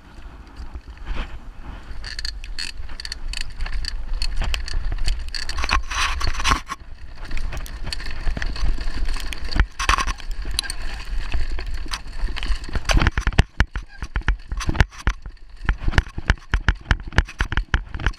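Downhill mountain bike, ridden without a chain, descending rough ground: a dense run of knocks, clicks and rattles from the tyres and bike over rocks, with a steady low wind rumble on the microphone. The knocks grow sharper and more spaced out in the last few seconds.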